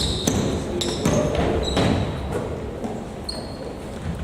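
Basketball play in an indoor gym: a few ball bounces on the court, with short squeaks of shoes on the floor and faint voices in the echoing hall.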